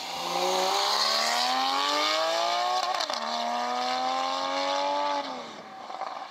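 Porsche 911 Targa's flat-six engine accelerating hard: revs climb for about three seconds, drop sharply on a quick upshift, climb again in the next gear, then fall away as it lifts off and fades into the distance near the end.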